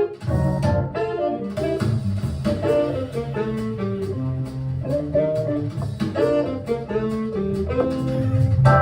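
A small-group hard bop jazz recording played back over speakers: a horn melody over bass and drums.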